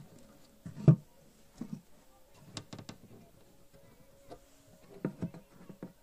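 Scattered knocks and clicks of wood on wood as hands work a wooden beehive box's back cover and its turn-button latches, with the loudest knock about a second in.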